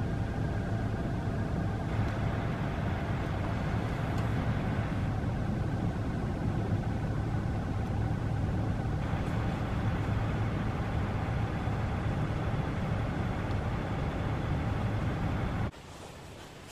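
A vehicle's engine running with a steady low hum and rumble, heard from inside the cab. It cuts off abruptly near the end, leaving a much quieter background.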